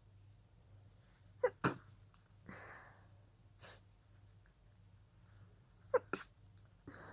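A person's breathy, stifled sneezes, from a sneezing fit set off by a pollen allergy. There are two, about four and a half seconds apart, each a quick double burst, with breathing between them.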